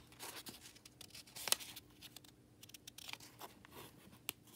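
Fingers rubbing and pressing on the pages of a paperback book: soft, irregular paper rustles and small clicks, the sharpest about a second and a half in.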